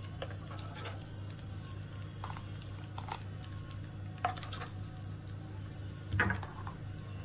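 A steel spoon dropping lumps of ghee into a kadai of melted ghee, tapping and scraping against the pan in a few light clicks, the loudest about six seconds in, over a steady low hum.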